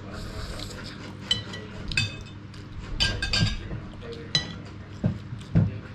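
Metal spoons and forks clinking against ceramic plates and bowls: several short, ringing clinks, a second or so apart. Near the end come a couple of dull knocks.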